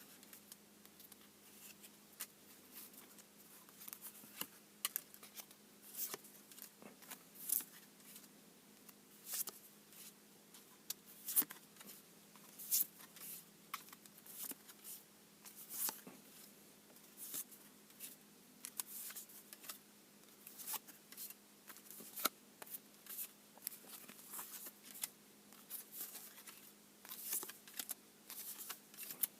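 Yu-Gi-Oh trading cards being handled and slid past one another, a run of short, soft swishes and flicks at an uneven pace, over a faint steady hum.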